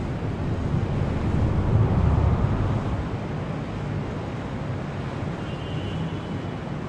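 A steady rushing, wind-like noise with a low rumble, swelling about two seconds in and then easing off.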